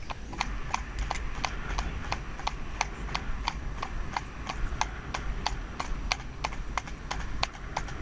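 A horse's hooves clip-clopping on a tarmac road in a steady, even rhythm of about three to four hoofbeats a second.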